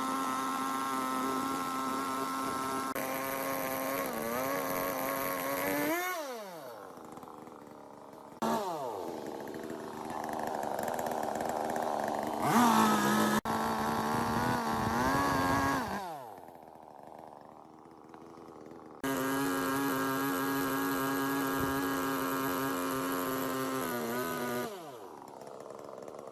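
Electric power tool motor running in three bursts. Each burst starts abruptly and ends with the whine falling away as the motor winds down. The middle burst is the loudest, with added rough noise.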